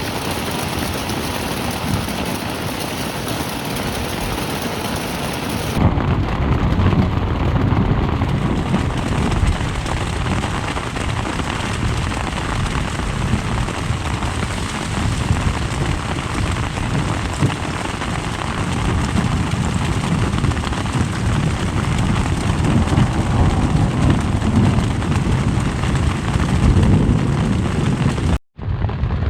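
Steady heavy rain, an even hiss with a deep low rumble under it. About six seconds in the sound changes, losing its top end and gaining more low rumble, and near the end it drops out briefly for a moment, an edit cut.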